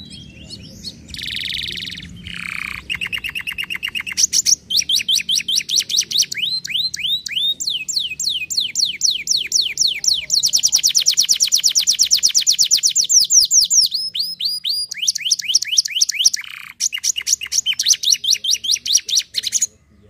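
Domestic canary singing a long, nearly unbroken song of trills and rolls: fast runs of repeated notes, each run a rising or falling sweep, changing from one run to the next. It stops suddenly near the end.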